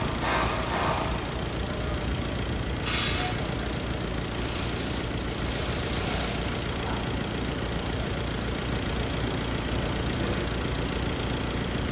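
Forklift engine idling with a steady low rumble, while the workers are lifted on it. A short hiss comes about three seconds in and a longer one from about four to nearly seven seconds in.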